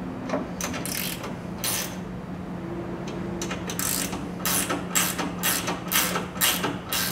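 Hand ratchet clicking in repeated back-and-forth strokes as the bolts on a truck-bed rail clamp are tightened, the strokes coming quicker, about two a second, in the second half. A steady low hum runs underneath.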